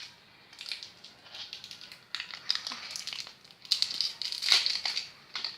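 Plastic wrapping crinkling and tearing as it is pulled off an LOL Surprise toy ball being unwrapped. It starts about half a second in, as a run of crackles, and is busiest near the end.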